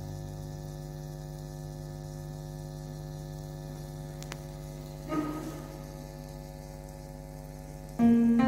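Steady electrical hum from the amplified sound system, with a brief short noise about five seconds in. Near the end an electric keyboard comes in loudly with a sustained chord.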